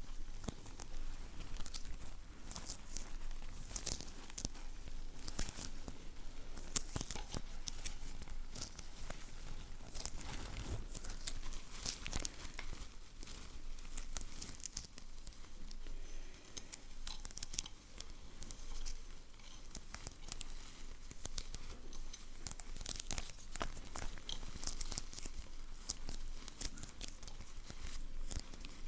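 Close-miked sticky peeling and crinkling sounds: a dense, irregular run of crackles and small clicks, like a tacky surface being pulled apart.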